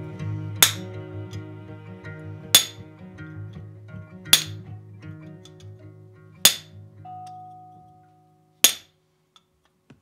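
Hammer striking a hand-held chisel held on red-hot iron on an anvil: five sharp metallic clinks about two seconds apart, each ringing briefly, as the chisel cuts a decorative line into the bar. Background music plays under the first four blows and fades out before the last.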